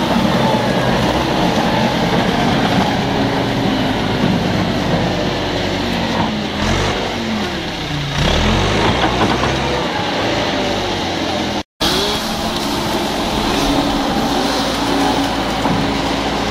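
Diesel engine of a heavy wheel loader running under load, its pitch dipping and climbing as it revs about halfway through. The sound cuts out for an instant about two-thirds of the way in, then the engine runs on.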